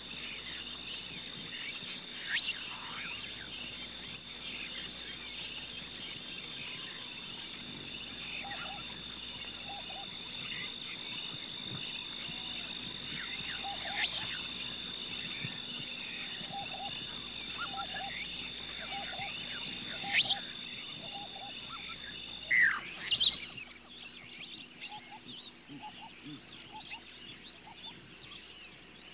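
Wildlife soundtrack: a steady, evenly pulsing high-pitched animal chorus with scattered short bird chirps. About 23 s in the chorus stops suddenly and a quieter ambience with a few chirps takes over.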